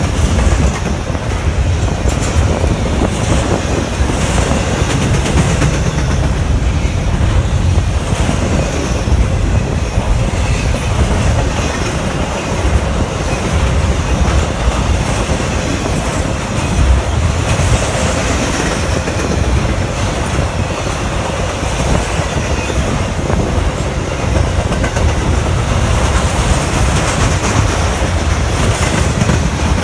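An intermodal freight train's double-stack container cars and trailer-carrying flatcars roll past close by, their steel wheels on the rails making a steady, loud rumble.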